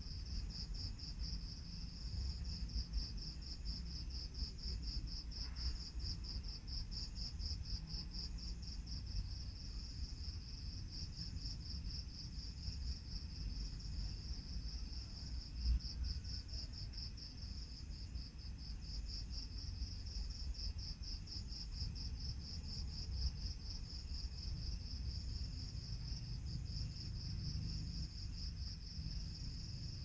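Night insects, crickets, chirping in a steady, high-pitched, rapidly pulsing trill over a low background rumble.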